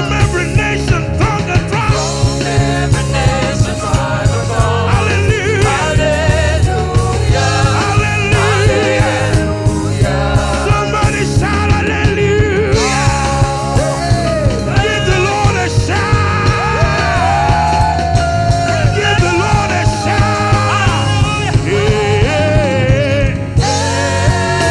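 Praise and worship band music with a steady beat, and a lead melody line that bends and wavers in pitch over the band.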